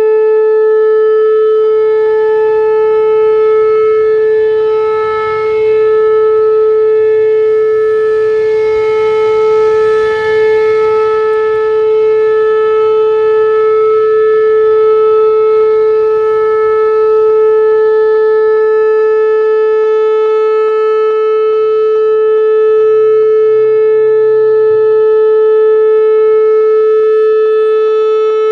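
Whelen WPS-4008 electronic rotating siren sounding its Alert signal: one loud steady tone that holds its pitch, with short dips in level as it turns. Its drivers are broken, which the uploader blames for the popping in its sound.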